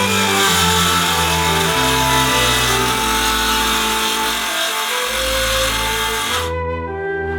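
DeWalt DC390 18-volt cordless circular saw cutting wood, a steady loud rush that cuts off suddenly about six and a half seconds in. Background music plays throughout.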